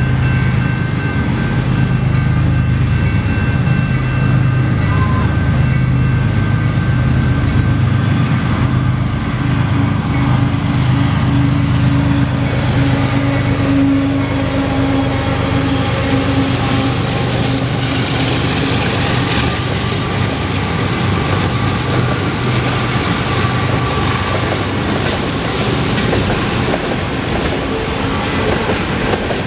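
Two Canadian Pacific GE ES44AC diesel locomotives approach and pass close by, their V12 engines giving a heavy rumble that is loudest around the middle. From about halfway the wheels of the freight cars on the rails take over as a steady, hissing roll.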